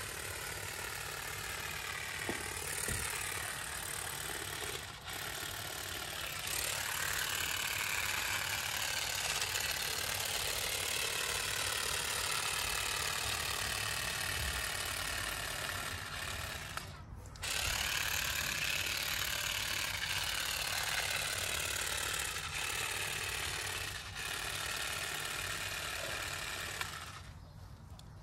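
Parkside PGSA 4 A2 cordless grass and shrub shears running as they clip thuja foliage: a steady motor buzz whose pitch wavers. It stops briefly about 17 seconds in and dies away shortly before the end.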